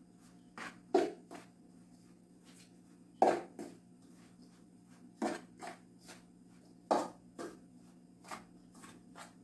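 A spoon stirring a dry cornmeal mixture in a large metal bowl, knocking and scraping against the bowl. The knocks come in pairs, a pair about every two seconds.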